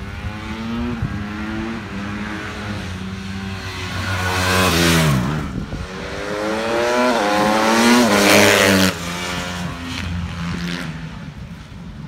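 Honda CRF150 supermoto's single-cylinder four-stroke engine revving up and down through the gears as it laps the kart track. It passes close twice. About five seconds in its pitch falls steeply as it goes by, and near nine seconds it cuts off suddenly.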